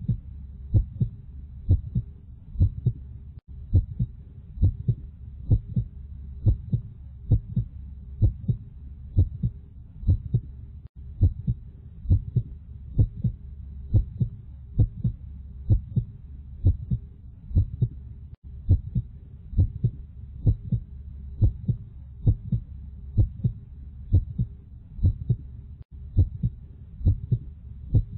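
Heartbeat: a steady run of paired low thumps, lub-dub, over a constant low hum, with a brief dropout about every seven and a half seconds.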